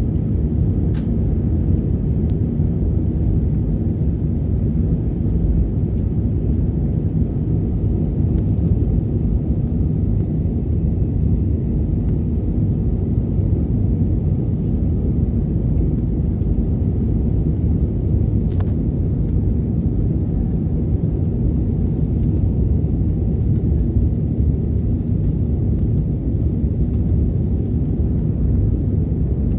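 Steady low rumble of an Airbus A320's engines and rushing air heard inside the passenger cabin, holding an even level throughout.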